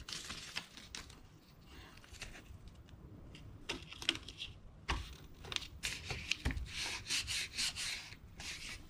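Masking-style painter's tape being pressed and rubbed down by hand onto a wooden board on a metal T-slot table, heard as irregular short rubbing and rustling noises that grow busier in the second half. Two dull knocks come in the middle, about a second and a half apart.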